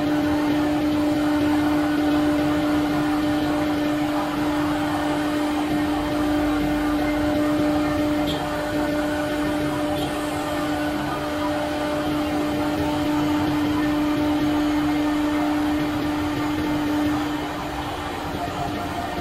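CNC router spindle milling a metal plate: a steady whine over the gritty noise of the cutter biting the metal. The whine stops and the sound drops a little near the end.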